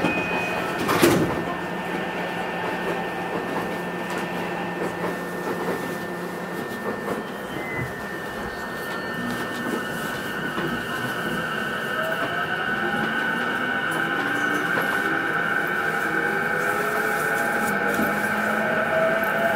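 Interior running sound of a JR E233-series electric train. A sharp thud comes about a second in; from around eight seconds the traction motors' whine climbs steadily in pitch as the train accelerates.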